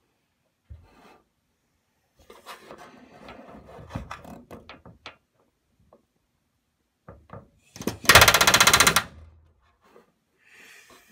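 Pneumatic rivet gun driving a solid aluminium rivet in one burst of rapid hammering about a second long, roughly eight seconds in, against a steel bucking bar held on the rivet's tail. Before it, scraping and clicking as the bucking bar is set in place on the aluminium structure.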